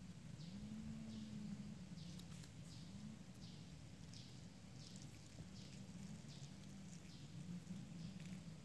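Faint outdoor background: a small animal chirps over and over, short high downward-sliding calls about one and a half a second, over a low steady hum.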